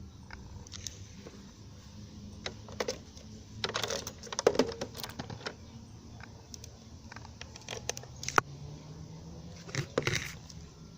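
Shortwave radio reception with no programme audio: steady hiss and a faint low hum, broken by irregular static crackles and clicks, in clusters about three to five seconds in, around eight seconds, and near ten seconds.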